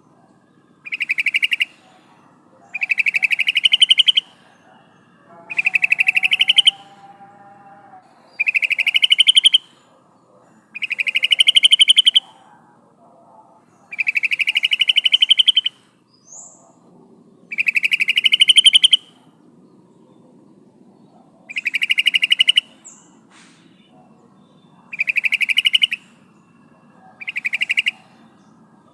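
Female yellow-vented bulbul (trucukan) calling: a rapid rattling chatter in bursts of about a second, repeated every two to three seconds, each burst rising slightly in pitch.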